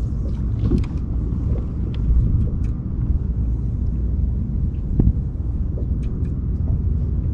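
Steady low rumble of wind on an action camera's microphone, with scattered light clicks and taps from handling gear in the kayak.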